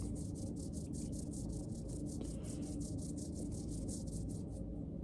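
Quick, even scraping strokes, about five a second, over a steady low hum; the strokes stop near the end.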